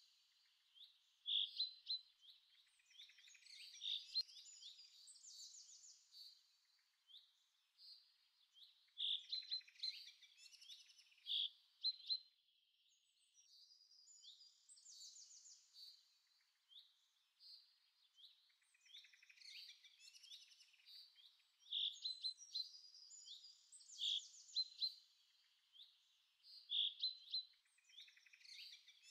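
Songbirds chirping and trilling in quick, high phrases, with a lull around the middle.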